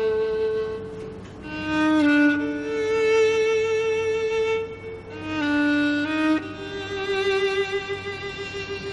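Background music: a slow violin melody of long held notes with a gentle vibrato, moving to a new note every one to three seconds.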